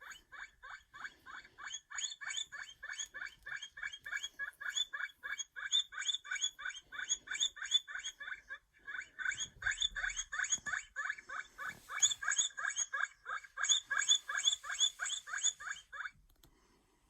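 Guinea pig squeaking in a fast, steady series of short, high squeaks, each dipping in pitch, about five a second, with a short break about 9 s in and stopping about 16 s in.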